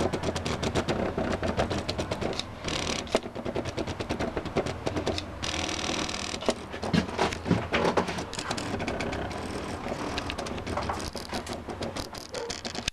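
Stepper motors of a homemade CNC plotter built from electronic scrap, driving its axes with a rapid, uneven ticking and buzzing over a steady low hum. The pattern changes as the moves change, and it stops abruptly at the end.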